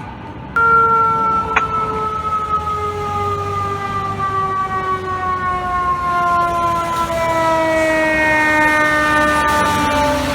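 Fire truck siren sounding one long wail that starts suddenly about half a second in and slowly falls in pitch.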